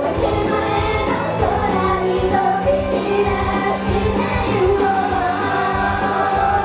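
Japanese idol group performing live: female voices singing over loud, driving pop-rock music.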